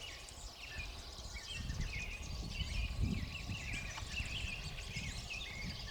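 Chorus of many wild birds singing and calling at once in spring, short overlapping warbled phrases, over a low rumble that peaks about three seconds in.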